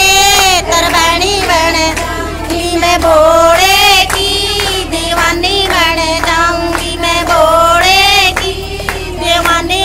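A high female voice singing a Shiva bhajan (Hindu devotional song) with ornamented, wavering melody lines, over a steady percussion beat.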